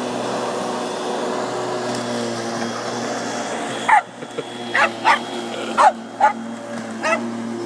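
Corded electric lawnmower motor running with a steady hum. About halfway through, a Jack Russell terrier starts barking at it in short barks, about six of them, spaced half a second to a second apart.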